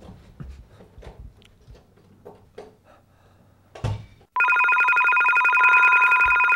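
Soft scuffs and knocks, then one louder thump. About four seconds in, a cordless telephone's electronic ringer starts ringing loud and steady, several tones warbling fast together.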